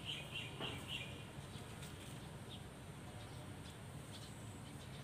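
A small bird chirping in a quick series, about five chirps a second, that stops about a second in, with a faint steady outdoor background after it.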